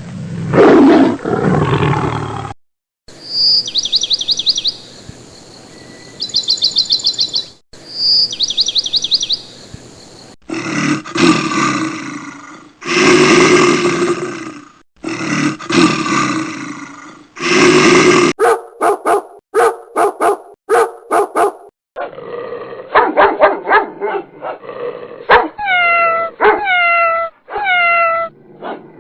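A string of separate animal call recordings played back to back with short gaps, beginning with a low roar and ending with a run of dog barks and yelps that fall in pitch.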